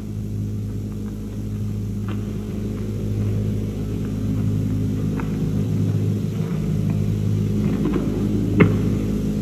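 A steady low drone on the soundtrack, slowly getting louder, with a few faint short clicks.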